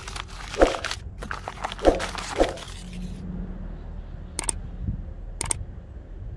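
Brown paper wrapping crinkling and rustling as it is unwrapped by hand, stopping abruptly about three seconds in. Two brief sharp clicks follow, about a second apart.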